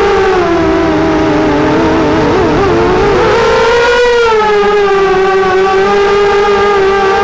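Brushless motors of a Diatone 180 FPV quadcopter whining in flight, heard up close on its onboard camera. The pitch wavers with the throttle, dipping and splitting into several tones a couple of seconds in, then rising again about four seconds in.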